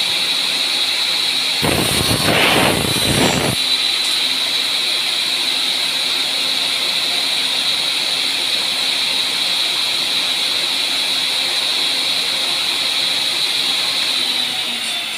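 Electric miter saw cutting wooden picture-frame moulding: a loud rushing cut about two seconds in that lasts about two seconds, over a steady high-pitched whine.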